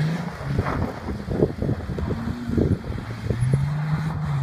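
Mercedes-Benz ML350 SUV's V6 engine pulling under throttle as it drives off through snow, its note shifting in pitch and settling near the end, with wind buffeting the microphone in short thumps.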